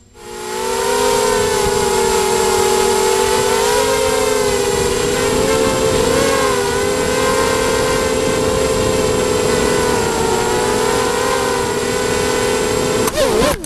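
The four brushless motors and propellers of an Emax Nighthawk 250 racing quadcopter whine loudly, heard from its onboard camera. They spool up quickly at the start as it lifts off the grass and hold a several-toned whine that shifts slightly with throttle through the flight. Near the end there is a sharp knock, the whine wobbles, and it cuts out as the quad crashes.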